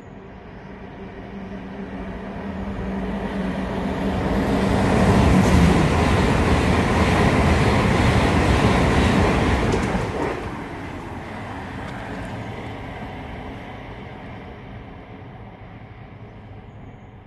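A train approaches and passes on the main line. A steady hum builds as it nears, the noise of the passing train is loudest from about five to ten seconds in, and it then drops away and fades as the train recedes.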